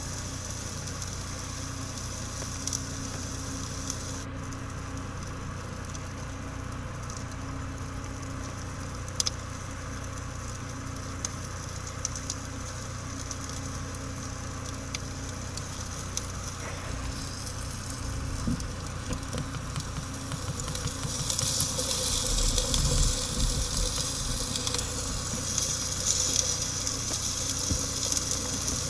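Campfire burning: a steady hiss and crackle with occasional sharp pops, growing louder and hissier about two-thirds of the way through.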